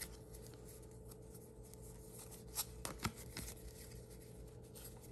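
Stack of trading cards handled and slid apart by hand: faint rustling, with a few soft card clicks about halfway through, over a faint steady hum.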